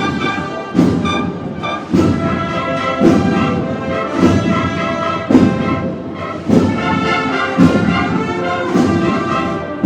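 Processional marching band of brass and drums playing a slow march: sustained brass chords over a heavy drum beat that falls about once a second.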